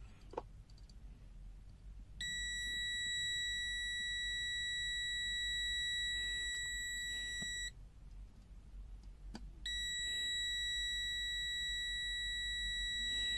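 Continuity beeper of an NJTY T1 pocket multimeter sounding a steady, high-pitched beep for about five and a half seconds. It stops, then sounds again for about four seconds, signalling a continuous circuit (under about 50 ohms) across the test leads.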